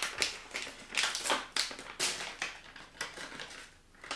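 A small snack pouch being torn open and crinkled in the hands, a rapid run of crackling rustles that thins out near the end.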